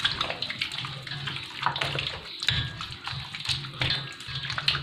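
Bare hands mixing raw chicken pieces into a wet yogurt marinade in a steel bowl: irregular wet squishing and slapping of meat and marinade.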